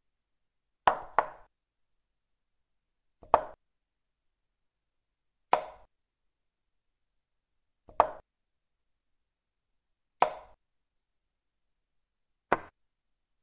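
Chess program's piece-move sound effect: a short click as each move is played on the board, about every two and a half seconds, six moves in all. Near the start a quick double click marks castling, king and rook each moving.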